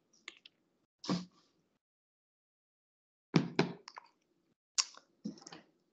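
A lull with a few short, faint clicks and pops: one pop about a second in and a quick cluster of clicks a little past the middle.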